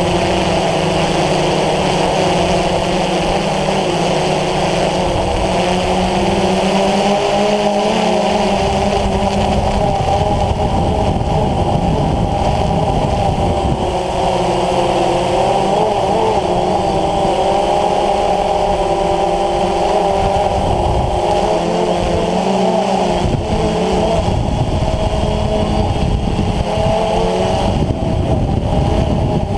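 DJI Phantom FC40 quadcopter's four electric motors and 9450 propellers, heard from the on-board GoPro as a steady, loud multi-tone whine whose pitches waver up and down together as the throttle shifts, with a low rough rumble underneath.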